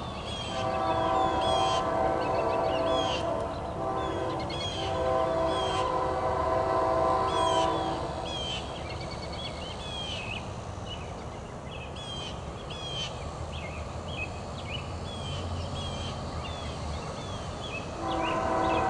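Distant locomotive air horn with several notes sounding together: two long blasts, then a pause of about ten seconds before another blast starts near the end. Small birds chirp throughout.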